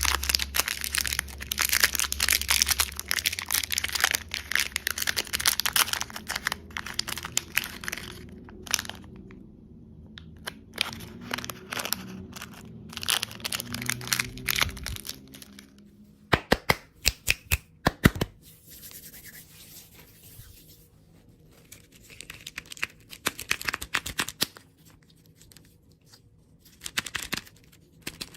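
Plastic candy wrappers crinkling and tearing as packaging is opened by hand. There is dense crackling at first, a quick run of sharp snaps a little past the middle, then quieter, sparser rustling.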